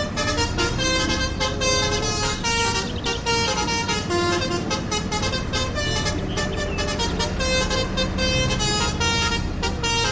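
An electronic melody of short pitched notes over a steady beat.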